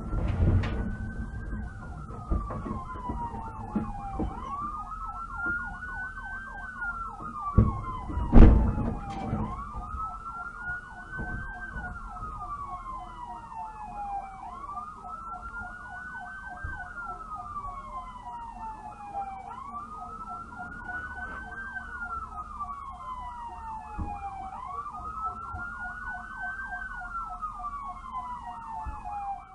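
Police car siren wailing, rising quickly and falling slowly about every five seconds, with a fast pulsing siren tone over it. A loud heavy thump comes about eight seconds in.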